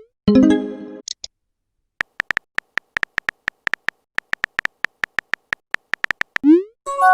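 Messaging-app sound effects. A short chord-like notification chime comes just after the start, followed by a tiny high blip. Then a run of rapid typing clicks, about six a second, lasts several seconds, and a quick rising pop is followed by another chime near the end.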